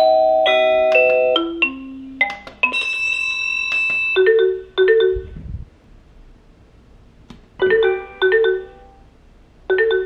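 Honeywell Series 9 doorbell chime playing a newly selected tone: a melody of electronic bell-like notes for about four seconds, then short chimes that come in pairs, three times. A brief low thump about five seconds in.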